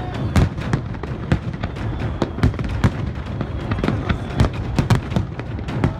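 Fireworks in a dense barrage: aerial shells bursting in rapid, irregular succession, several bangs a second over a continuous rumble and crackle.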